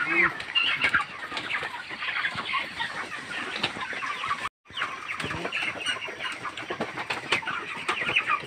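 A large flock of broiler chickens clucking and chirping, a dense continuous chatter of many birds. The sound cuts out completely for a split second about halfway through.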